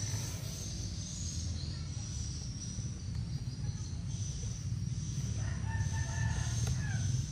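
A rooster crows once, starting about five and a half seconds in and lasting about a second and a half, over a steady high-pitched insect drone and a low rumble.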